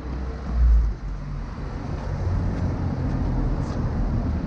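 City street traffic: cars and scooters passing, a steady low rumble with a louder swell about half a second in.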